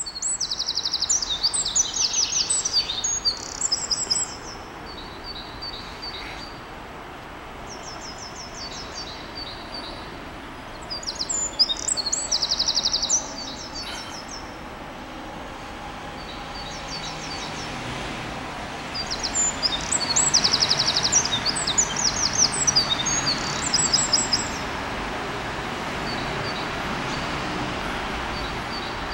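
Eurasian wren singing: three loud bouts of rapid, high-pitched trills and rattles, the first about four seconds long, the second about two, the third about five, with fainter short trills between, over steady background noise.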